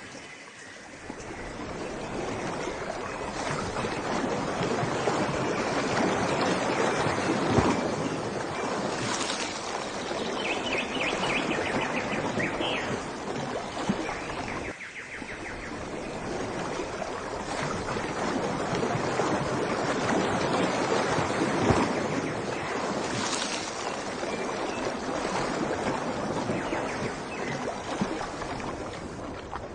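Rushing water swelling and easing twice, with a brief run of rapid high chirps about a third of the way in, fading near the end.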